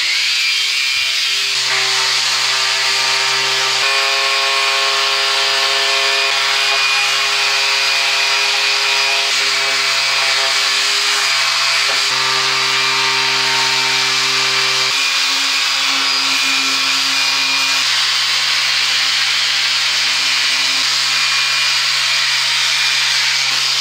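Makita DBO180Z 18 V cordless random orbital sander running while sanding rough timber: a steady motor hum over the hiss of the abrasive disc on the wood. The hum's pitch shifts slightly a few times.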